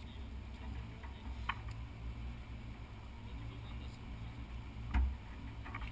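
Toyota Land Cruiser engine running with a low, steady rumble, with a brief click about a second and a half in and a single dull thump near the end.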